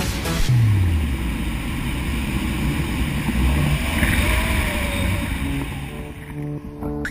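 Electronic music with a loud, steady rushing noise over it. A deep bass note slides down about half a second in, and the rushing fades near the end as the beat comes back.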